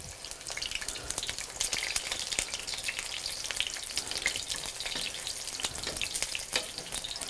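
Pupusas (corn-masa cakes) shallow-frying in hot oil in a skillet: a steady sizzle full of tiny crackling pops as the cakes are turned. The sputter is steam escaping from the moist cakes into the hot oil.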